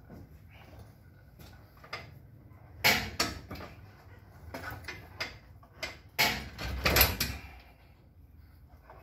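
Metal clanks and knocks from hand work with a jack and tools under an old truck: a few scattered clicks, a loud clank about three seconds in, and a burst of louder clanks a little past the middle.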